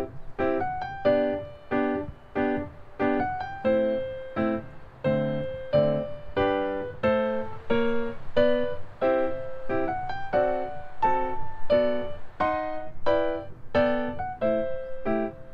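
Background piano music: a steady run of struck notes and chords, about one to two a second, each ringing briefly and fading.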